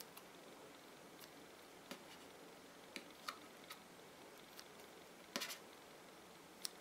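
Scissors snipping through a soft jelly stress ball: a few faint, scattered clicks of the blades closing, with a slightly longer snip about five seconds in.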